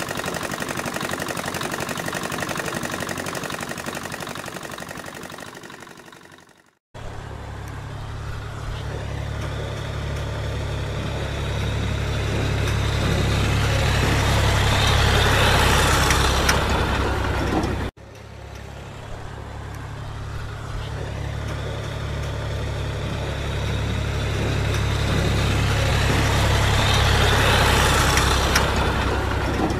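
Tractor diesel engines running in mud, in three separate clips. The first fades out about seven seconds in. The next two each have a heavy low drone that grows steadily louder before cutting off abruptly.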